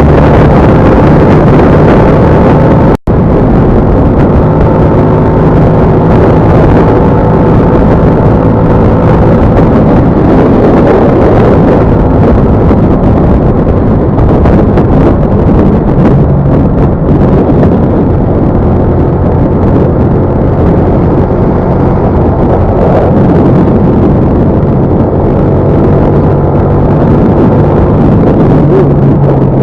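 Vehicle engine running steadily on the road, with road and wind noise, its pitch shifting slowly as the speed changes. The sound cuts out for a moment about three seconds in.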